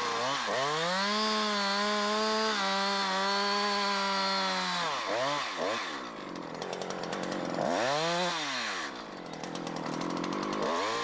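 Two-stroke chainsaw at full throttle cutting into a tree trunk, its pitch dipping slightly under load, while the directional notch is cut from the far side of a trunk thicker than the bar is long. About five seconds in the engine drops back, then it is revved up again in a few shorter swells.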